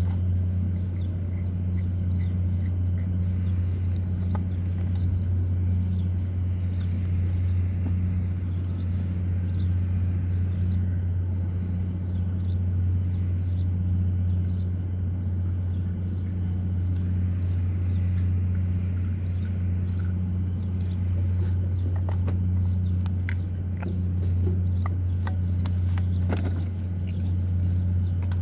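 Steady low hum of a running machine, with a second, higher tone pulsing on and off about once a second and scattered light clicks.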